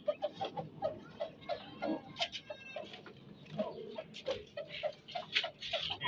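Chickens pecking grain: quick, irregular tapping, several pecks a second, with a brief squeak about two and a half seconds in.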